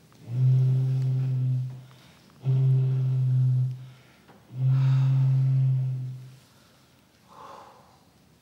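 A large hollow gourd blown into like a deep horn: three long, low, steady notes with short breaks between them. A faint breath follows near the end.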